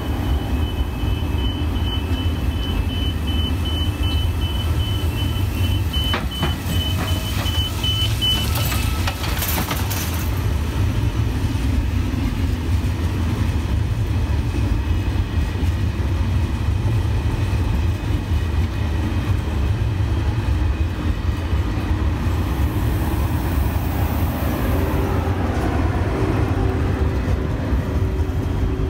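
Train moving through a railway station with a steady low rumble. A high, evenly broken beeping runs until about eight seconds in, a few clanks follow, and there is a short hiss near the end.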